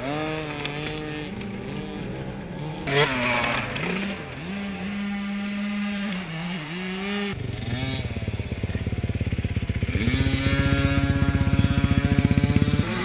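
Small two-stroke mini motocross bike engine revving, its pitch rising and falling as the throttle opens and closes, then holding steady revs with a fast pulsing over the last five seconds or so.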